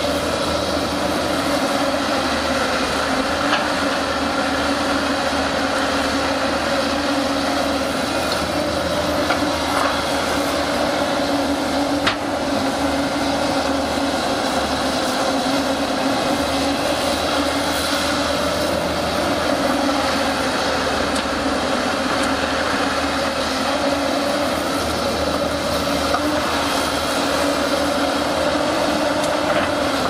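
JCB tracked hydraulic excavator running steadily while it digs and lifts soil, its diesel engine and hydraulics giving a constant drone. A single sharp knock comes about twelve seconds in.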